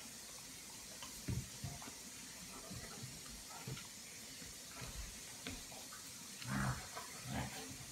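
A German shepherd and a smaller tan dog play-fighting, mouth to mouth, making scattered short mouthing and scuffling noises. The louder noises come about a second in and again twice near the end, over a steady hiss.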